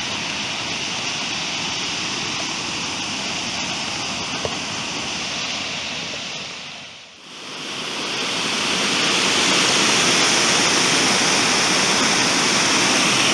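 Rushing white water of a creek cascade pouring over a rock ledge into a pool, a steady noise. It fades out briefly about halfway through and returns louder.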